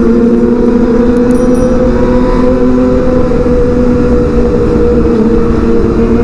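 Kawasaki ZX25R's inline-four engine running at a steady pitch while riding, with wind rush underneath.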